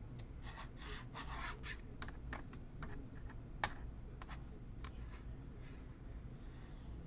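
Faint, scattered clicks and scratchy rubbing from hands working at a computer desk, with a few keyboard clicks among the handling noise.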